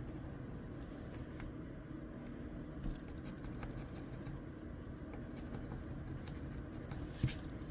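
Crossword scratch-off lottery ticket being scratched: a run of light, short scraping strokes across the card, with a sharper tap near the end.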